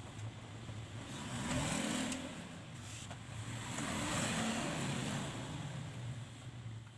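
Motor vehicles passing by, their engine and road noise swelling and fading twice: once about a second and a half in and again around four seconds in.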